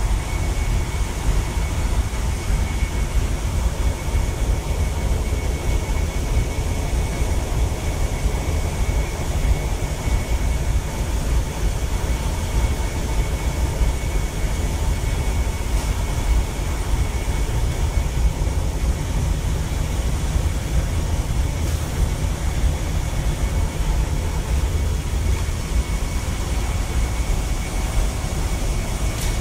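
Steady low rumble and hum of a ship's engine-room machinery, with the slow-speed main diesel running at about 96 rpm at sea, heard inside the engine control room. A faint steady whine sits over the rumble.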